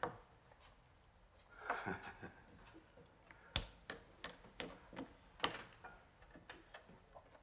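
Faint, irregular clicks and clinks of metal cutlery against a plate, about a dozen scattered ones, the sharpest a little past the middle.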